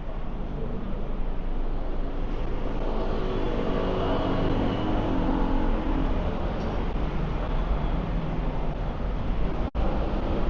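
City street traffic with vehicles passing, including an engine hum that swells in the middle. The sound cuts out for a moment about a second before the end.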